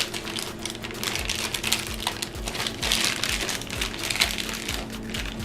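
Plastic bag crinkling and rustling as it is handled around bottles of body wash, with a steady low hum underneath.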